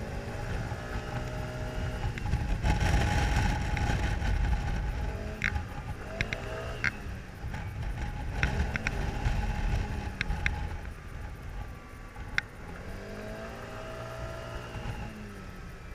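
Kymco scooter's engine on the move, its note rising and falling several times as the throttle opens and eases, under heavy wind rumble on the microphone, with a few sharp clicks.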